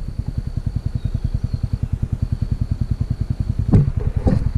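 Side-by-side utility vehicle's engine idling nearby, a steady low chugging of about ten pulses a second, with a couple of knocks near the end.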